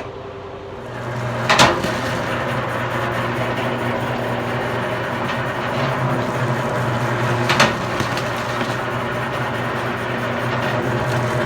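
Commercial electric wire stripping machine starting up about a second in and then running with a steady hum, with two sharp knocks, one near the start and one about six seconds later.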